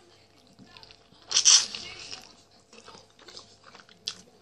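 Biting into a grilled chicken wing: one loud crunch about a second and a half in, then quieter chewing and smacking.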